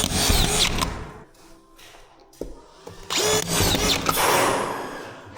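Power drill running in two short bursts, each motor spinning up and holding speed for about a second and a half, the second starting about three seconds in.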